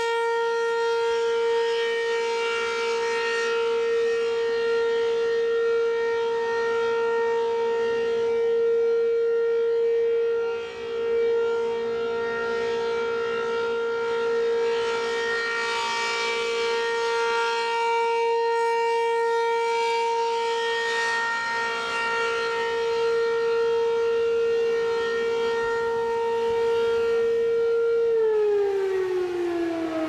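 ACA P-15 Penetrator rotating electromechanical warning siren sounding its steady alert tone, swelling and fading as the horn turns. About two seconds before the end the pitch starts to fall as the siren winds down at the end of the alert.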